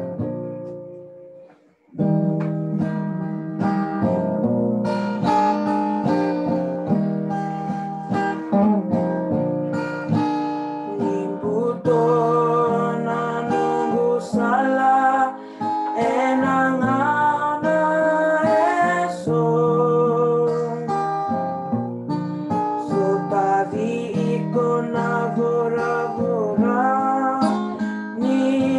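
Acoustic guitar playing a song's accompaniment. It stops briefly about a second in, then starts again. Partway through, voices join in singing the song in Fijian.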